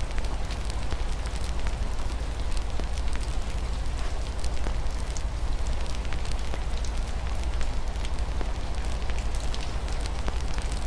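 Wood fire crackling with frequent small pops and snaps over a steady low rumble, mixed with a constant hiss of rain falling against a window.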